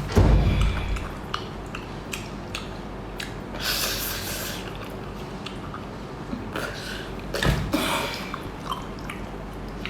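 Close-miked eating of a spicy octopus: wet biting, chewing and slurping, with a few louder smacking bursts just after the start, about four seconds in and near eight seconds.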